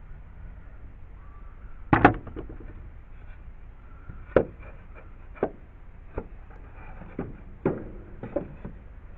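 Wooden knocks and clunks from lumber being handled and set in place, about eight irregular hits with the loudest about two seconds in.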